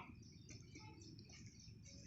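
Near silence, with faint, short, high-pitched bird chirps repeating in the background.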